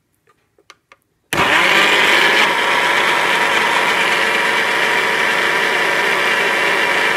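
Countertop blender switched on, starting suddenly about a second in and running at a steady speed as it purees chunks of apple and orange.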